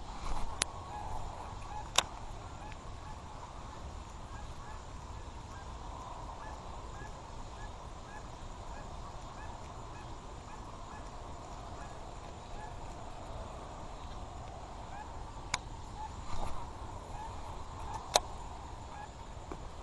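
Outdoor animal chorus, with a faint chirp repeating about twice a second for several seconds. A few sharp clicks sound over it.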